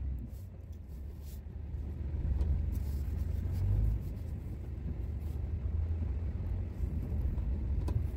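Low, steady rumble of a 2003 Dodge Ram 2500 pickup, heard from inside the cab as it drives slowly pushing snow with its plow.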